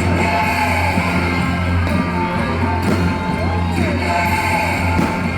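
Loud music with a strong steady bass, with a few crowd voices rising over it.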